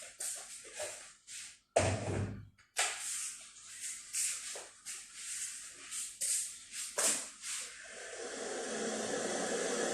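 A run of short rustling handling noises with a louder knock about two seconds in. About eight seconds in, a steady rushing of water starts: hot water being poured over oregano leaves to blanch them.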